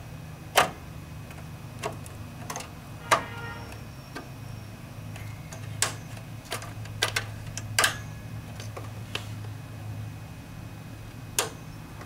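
Irregular sharp clicks and knocks, about a dozen, from DDR2 RAM modules being handled and pressed into motherboard slots. The loudest come about half a second in and about three seconds in. A steady low hum runs underneath.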